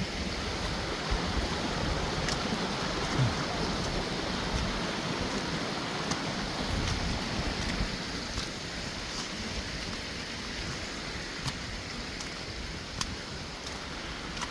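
Mountain creek running steadily: a continuous rush of water, with a few faint clicks scattered through it.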